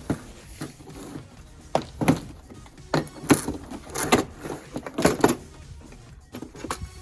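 Irregular knocks and clanks, several in quick pairs, from tools working on a pickup truck's rear wheel and drum brake as it is taken apart. Background music runs underneath.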